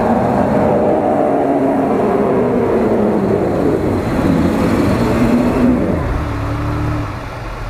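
Mitsubishi Pajero Sport engine revving under load, its pitch rising and falling as the tyres spin and claw up a snowy slope. Near the end it eases back to a lower, steadier note and gets quieter.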